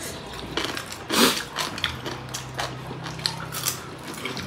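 Close-up eating sounds: wet chewing and lip smacking as two people eat rice and pork curry by hand, with scattered small clicks and one louder burst about a second in. A faint steady hum joins about halfway through.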